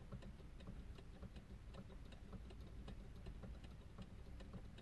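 Faint, even ticking, about three ticks a second, over a steady low hum inside a car.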